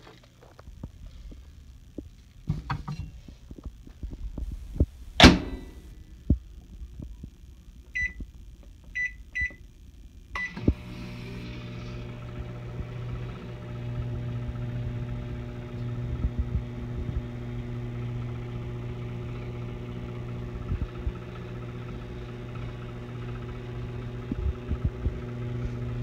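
Microwave oven being loaded and started: its door shuts with a sharp clack about five seconds in, the keypad gives four short beeps, and then the oven runs with a steady electrical hum.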